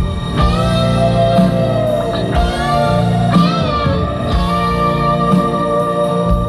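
Live rock band playing, led by an electric guitar whose notes bend and glide up and down over a steady held chord backing.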